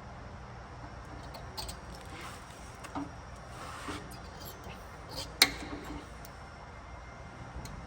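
Center punch being struck to mark a hole in steel pipe: a few light taps, then one sharp strike about five and a half seconds in, over a steady low hum.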